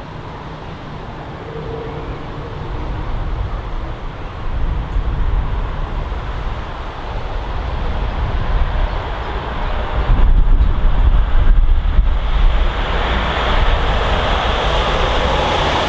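Wind buffeting the microphone with a low rumble, gusting hardest about ten to twelve seconds in. Meanwhile a class 37 diesel locomotive with its English Electric V12 engine approaches, hauling a dead class 90 electric locomotive, and its sound grows steadily louder over the last few seconds.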